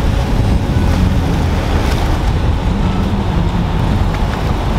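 Steady low rumble of wind buffeting the microphone, mixed with the wash of breaking surf.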